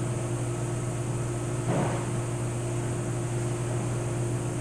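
Steady low electric motor hum, like a fan or air conditioner running, with a brief soft rustle about two seconds in.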